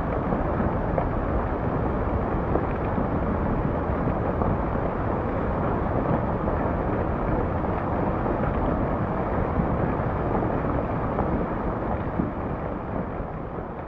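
Rockslide rumbling as a mass of rock and dust pours down a mountainside: a continuous, steady noise that fades out near the end.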